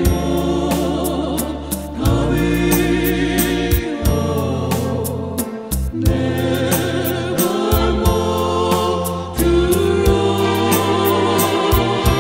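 Gospel hymn sung by voices with vibrato, over sustained bass notes and a steady percussion beat.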